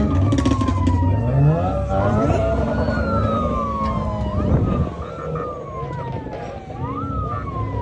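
Emergency vehicle siren wailing, each cycle climbing quickly and falling slowly, repeating about every two and a half seconds, over the rumble of vehicle engines.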